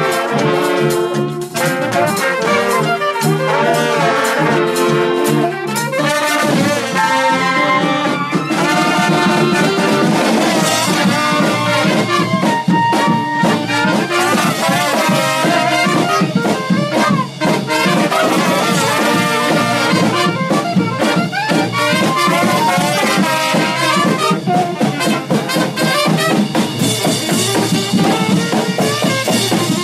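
Live brass band playing: trumpets, trombones, saxophone and sousaphone together over a drum kit, loud throughout.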